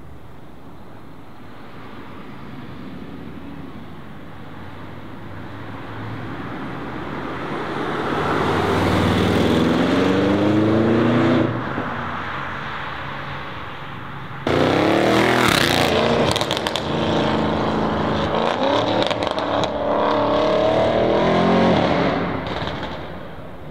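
Audi RS6 Avant's twin-turbo V8 accelerating hard, its pitch climbing through the revs. It builds over the first ten seconds and breaks off. About halfway in a second loud full-throttle run starts suddenly, with several climbs in pitch and some crackle, before fading near the end.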